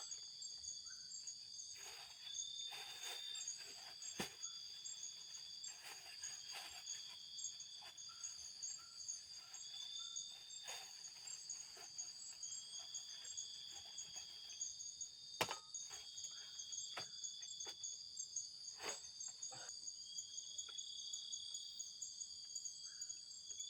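Night chorus of forest insects: a steady, high-pitched drone of several overlapping layers, one of them fast-pulsing, with a repeating shorter call every couple of seconds. A few faint sharp clicks come through, louder ones about four, fifteen and nineteen seconds in.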